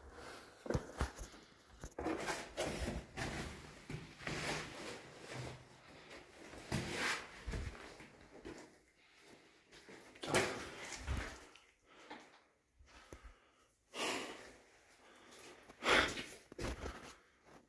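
Scraping and rustling of a person squeezing through a tight cave passage, as clothing and hands brush and drag against the rock. The scrapes come irregularly, with the loudest about ten and sixteen seconds in.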